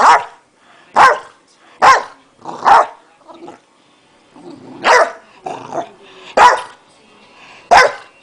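Boxer dog barking: about seven sharp, loud barks at uneven intervals, with a few softer, shorter barks between them.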